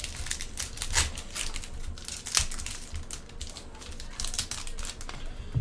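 Trading card pack wrapper crinkling while a pack of hockey cards is opened and handled: a run of irregular crackles, rustles and small clicks.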